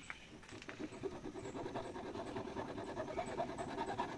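Hacksaw blade sawing back and forth through the side of a plastic fish box in steady repeated strokes.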